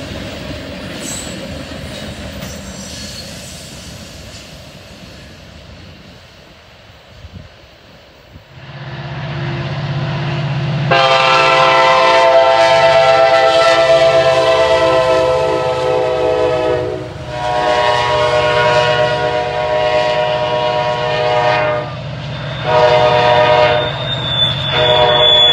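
Freight tank cars rolling past and fading away, then diesel freight locomotives approaching with their engines running and sounding a loud multi-note air horn: two long blasts, a short one, then another long one, the pattern of a grade-crossing warning.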